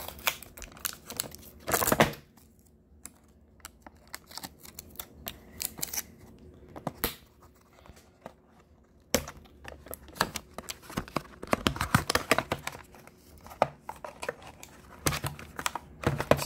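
Fingernails scratching and picking at a clear tape seal on a small cardboard box, peeling and tearing it loose, with irregular scratchy clicks and a few louder bursts of rustling as the box is handled.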